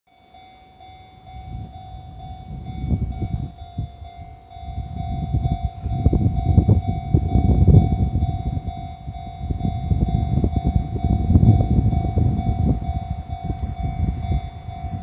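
Japanese level-crossing warning bell ringing steadily. The rumble of a freight train hauled by an EF210 electric locomotive grows louder from about two seconds in as it approaches the crossing.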